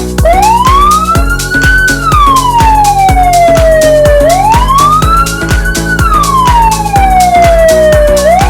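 Senken electronic siren module sounding through a 10-watt ZH-610S horn speaker: a loud wail that climbs over about two seconds and falls back more slowly, going through about two full rise-and-fall cycles.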